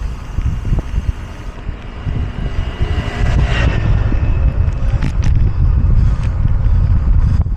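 Wind rumbling on the microphone, growing louder about halfway through and staying louder.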